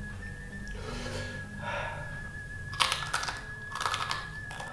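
Crisp jengkol crackers (kerupuk jengkol) crunching as they are bitten and chewed, with soft crunches early and loud crackly bursts about three and four seconds in.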